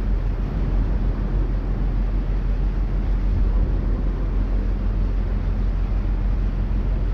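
Boat engine running steadily underway: a constant low hum with a broad rushing noise over it.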